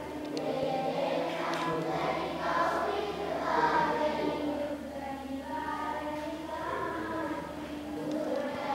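Several voices singing together in a devotional chant-like song. A steady low hum runs underneath from about two seconds in until shortly before the end.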